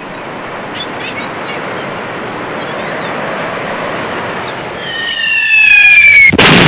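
Ocean surf washing steadily, then a falling whistle like an incoming shell about five seconds in, cut off by a loud explosion near the end.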